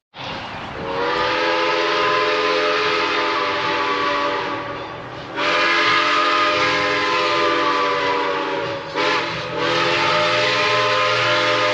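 The chime whistle of Iowa Interstate 2-10-2 steam locomotive No. 6988 sounds a chord in two long blasts, a short one and another long one: the standard grade-crossing whistle signal.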